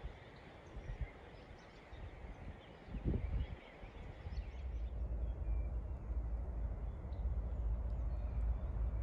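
Outdoor background noise with faint bird chirps; a low rumble comes in about three seconds in and then holds steady.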